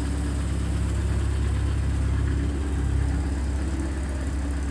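1966 Austin Mini van's small four-cylinder engine idling steadily, ticking over evenly and sounding healthy.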